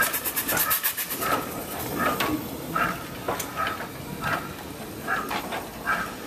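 Locomotion No. 1 replica steam locomotive chuffing as it moves slowly, with one exhaust beat about every three-quarters of a second. A quick run of sharp clicks comes in the first second.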